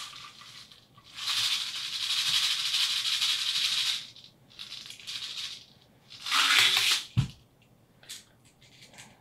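Copper BBs rattling as they are shaken from a bottle's spout into the hollow plastic body of a pencil-popper plug, in three bursts, the first about three seconds long: the lure is being loaded with BBs to add casting weight. A single low knock follows just after the last burst.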